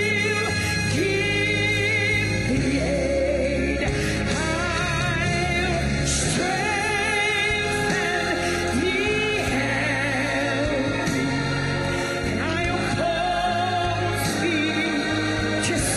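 Gospel-style singing with vibrato over instrumental accompaniment with held low notes.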